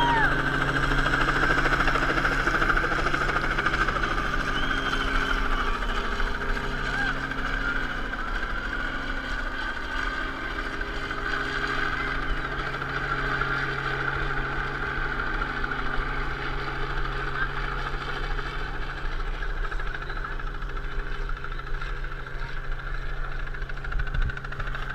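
A steady engine drone holding one low pitch, with spectators' voices and cheers over it.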